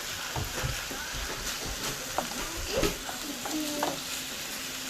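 Ground chicken and vegetables sizzling in a frying pan, with a utensil scraping and clicking against the pan as the mix is stirred.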